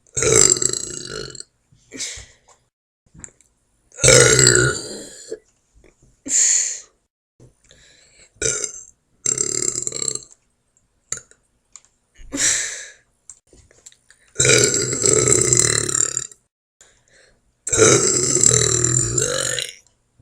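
A woman burping over and over: about nine separate burps, some short and some drawn out, with brief pauses between. The longest last about two seconds each, in the second half.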